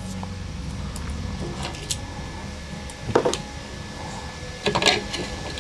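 Light handling noises from a 3D-printer hotend assembly with its fan and wires being turned in the hands: a few short clicks and rustles, the clearest a little after three seconds and near five seconds, over a steady low hum.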